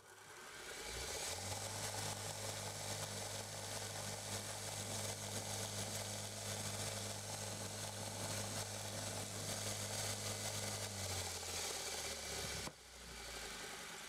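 Electric motor of a belt grinder switched on, spinning up to a steady hum with a continuous hiss from the running belt. Near the end it slows and runs down, and the sound cuts off abruptly.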